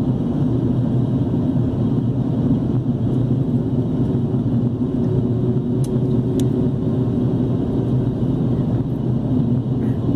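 Steady low drone of an airliner's jet engines and rushing air, heard inside the passenger cabin while the plane descends before landing. Two faint clicks about six seconds in.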